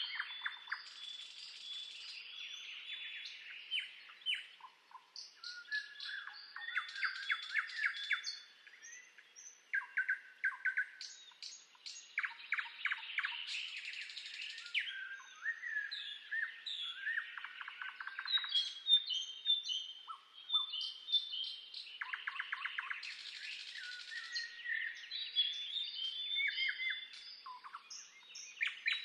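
Songbirds singing and chirping without a break: overlapping rapid trills, short whistled notes and quick chirps from several birds at once.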